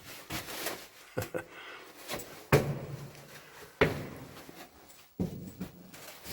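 Footsteps and scuffs on a rocky, uneven trench floor in an underground chamber, with irregular knocks. Two sharp knocks, about two and a half and four seconds in, are the loudest.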